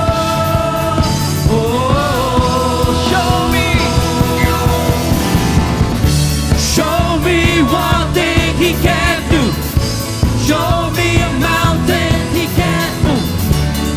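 Live praise and worship band playing a rock-style song: a steady beat from drums and bass under a melody line, with long held notes early on and a wavering, ornamented melody in the second half.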